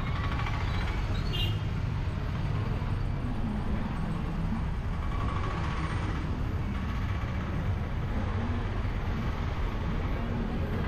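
Street traffic: tuk-tuk and van engines running close by, with a steady low rumble.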